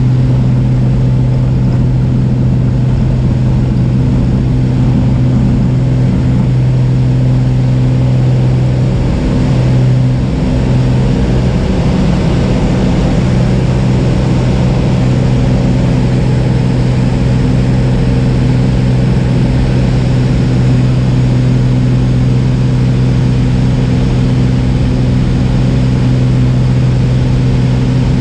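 Single-engine light aircraft's piston engine and propeller running at high power during takeoff and climb-out, heard as a loud, steady drone from inside the cabin.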